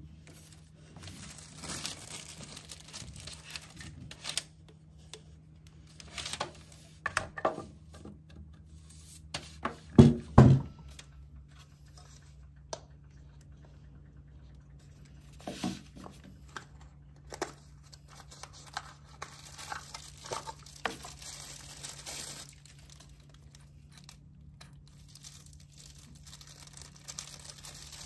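Plastic packaging crinkling and tearing as it is pulled open by hand, in spells of rustling, with two loud knocks about ten seconds in.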